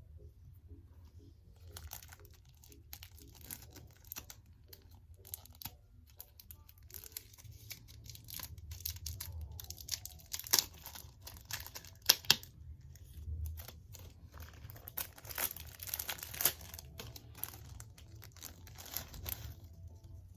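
Dry crunchy debris and paper crinkling and crackling, with irregular rustles and small cracks and a few sharper cracks about ten and twelve seconds in. A faint steady low hum runs underneath.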